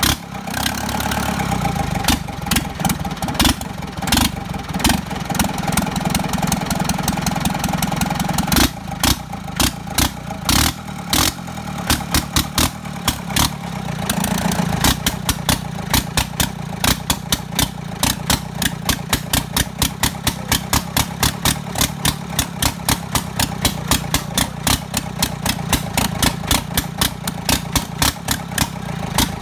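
Yanmar US45 tractor's diesel engine running with a regular knocking clatter, the knocks coming faster and more evenly from about halfway through.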